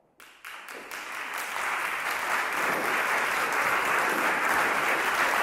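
Audience applause in a concert hall: a few scattered claps that within about a second build into steady, full applause.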